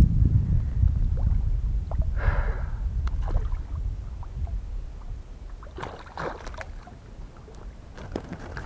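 A hooked pike thrashing and splashing at the surface as it is drawn to the bank, with one splash about two seconds in and more splashing and knocking around six seconds and near the end, over a low wind rumble on the microphone.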